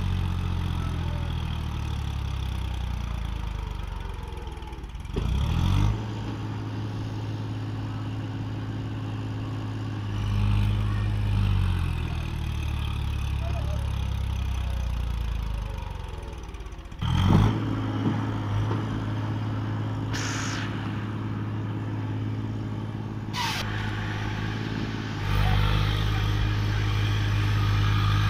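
Tractor's diesel engine running steadily, its revs shifting several times, with sharper surges about five and seventeen seconds in.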